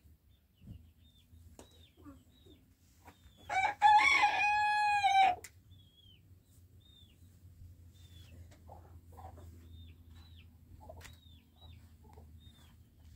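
A rooster crowing once, a call of about two seconds starting a few seconds in. Short, high, falling chirps of small birds repeat around it.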